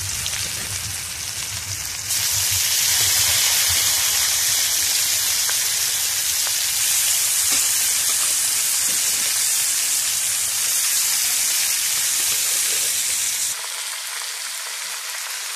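Hot oil sizzling in a kadai as marinated chicken pieces fry with whole spices. The sizzle jumps louder about two seconds in and drops back near the end.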